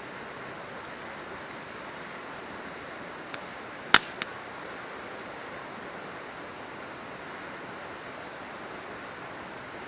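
Steady rush of a river, with a wood campfire crackling: three sharp pops close together about four seconds in, the middle one loud.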